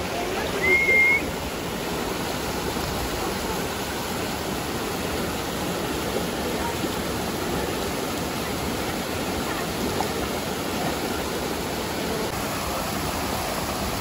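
Steady rush of a rocky stream and small waterfall cascading into a pool. A brief high whistle sounds about a second in.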